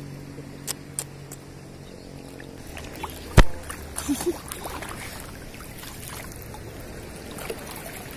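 Shallow seawater sloshing and trickling around someone wading, with one sharp knock about three and a half seconds in. A low steady hum underneath stops about two and a half seconds in.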